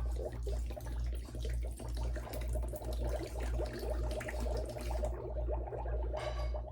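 Water poured from a small potion bottle into a toy cauldron, splashing for about five seconds before it stops. Underneath runs a low hum that pulses about twice a second.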